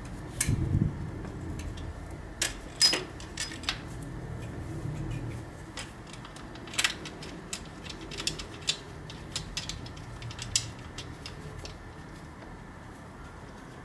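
Irregular metallic clicks and knocks as a Ford Duratec-HE throttle body is set back onto the intake and its mounting bolts are handled, over a low steady hum.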